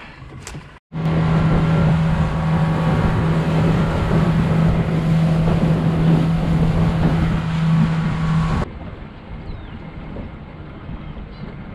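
Outboard motor of a small open fishing boat running at speed, a loud steady engine drone with rushing wind and water. Nearly nine seconds in it cuts abruptly to a much quieter, lower engine and water sound as the boat moves slowly near shore.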